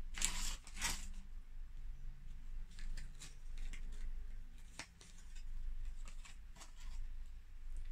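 Small metal jewellery handled in the fingers: a necklace chain rattles twice briefly about a second in, then light scattered clicks and clinks as the pieces and clasp are fingered with long nails.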